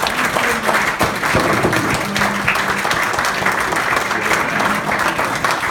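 A small roomful of people applauding steadily, with a few voices mixed in.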